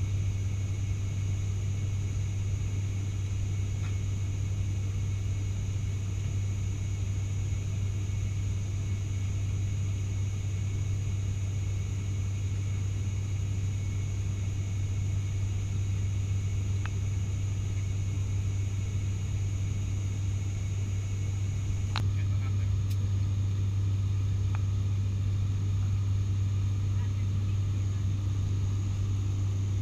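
Steady drone of the ATR 72-600's turboprop engines and six-bladed propellers heard from inside the cabin in cruise: a deep, even hum with a thin high whine above it. A few faint clicks come about two-thirds of the way through.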